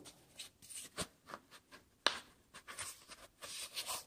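Faint handling sounds of a pistol being worked into a fabric belly-band holster pocket: cloth rubbing and scraping, with two sharper clicks about one and two seconds in.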